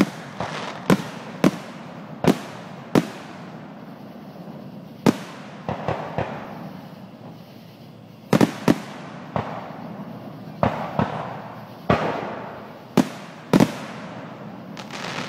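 Aerial fireworks shells bursting overhead in quick, uneven succession: sharp booms about every second, some in close pairs, with a hiss between them and a couple of short lulls.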